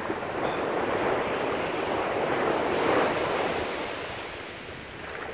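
Small waves breaking and washing up a sandy beach: a hiss of surf that swells to a peak about three seconds in, then eases off.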